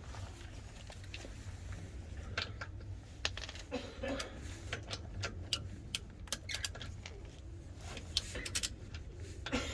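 A run of irregular sharp clicks and light knocks, like small hard objects being handled, starting about two and a half seconds in and coming more often toward the end, over a low steady hum.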